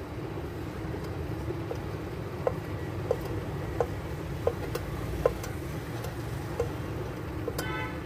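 Irregular light metallic clicks, about one a second, from a T-handle tool turning in the threaded coil-spring mount of a Danfoss FR compressor's pump as it is tightened, over a steady low hum.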